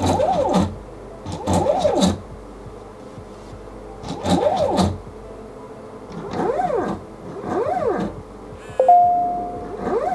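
Stepper motors of an Arduino CNC drawing machine, driven by A4988 drivers, making short jog moves on the X and Y axes: about six separate whines, each under a second, rising in pitch and falling again. A sudden short steady tone about nine seconds in is the loudest sound.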